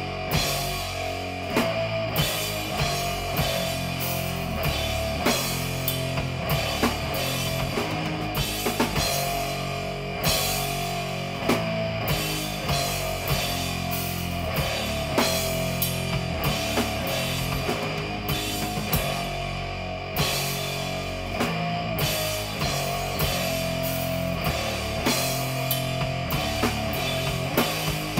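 Live rock band playing: drum kit, electric guitar and electric bass together, with the drum hits standing out, heard through a camera's built-in microphone.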